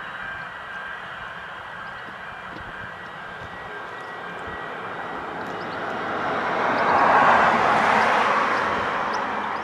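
A passing vehicle: a rushing noise that swells to a peak about seven seconds in and then fades away.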